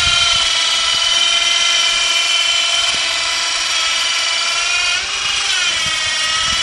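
The electric motor of a 12-volt battery-powered airplane towbar whining steadily as it moves a light aircraft. About five seconds in, the pitch dips briefly and then climbs back.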